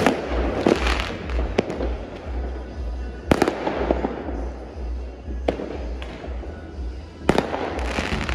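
New Year fireworks going off all around: several sharp bangs a second or two apart, each followed by crackling.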